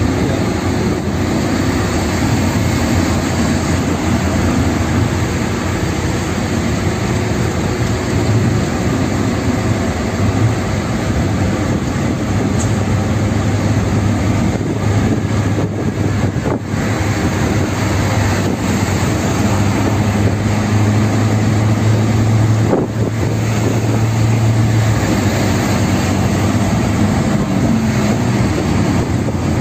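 Steady drone of a car's engine and tyre and road noise, heard from inside the cabin while driving, with a low hum that swells through the middle stretch.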